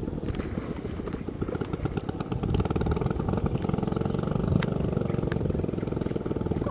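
A small engine running steadily with a fast, even firing rhythm, getting a little louder about two and a half seconds in.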